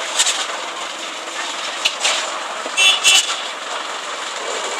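Construction-site noise during a concrete pour: steady machinery noise with a few sharp knocks, the two loudest close together about three seconds in with a brief ringing tone.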